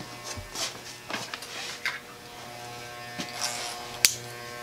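Small electric hair clipper running with a steady buzz from about halfway in, after a couple of seconds of handling clicks and rustles. A single sharp click, the loudest sound, comes near the end.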